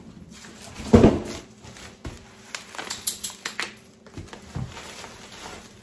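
Packaging being handled: a single thud about a second in, then scattered crinkling and rustling of bubble wrap and packing paper around the wrapped soap cutter.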